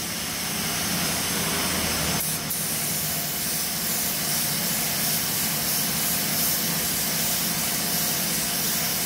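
Compressed-air paint spray gun hissing steadily as it sprays paint onto a car body panel for a spot repair. The high hiss grows stronger about two seconds in.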